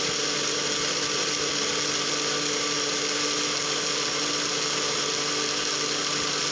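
Small electric blender running steadily at a constant pitch, blending a banana and egg mixture.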